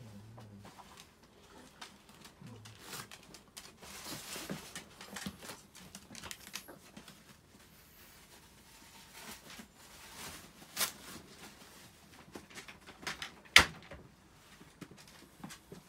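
Handling noises around wire dog crates: rustling with scattered light clicks and taps, a sharper knock about eleven seconds in, and one loud clack near the end.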